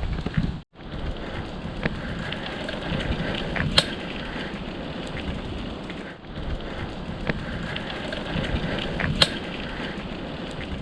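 Campfire crackling: a steady hiss with scattered sharp pops.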